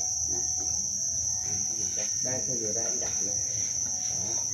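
Dense chorus of farmed black crickets chirping, a steady high-pitched trill that runs without a break.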